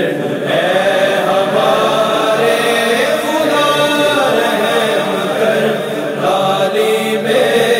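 Wordless a cappella vocal chorus chanting and humming held, gliding tones: the backing vocals of a devotional hamd, with no instruments.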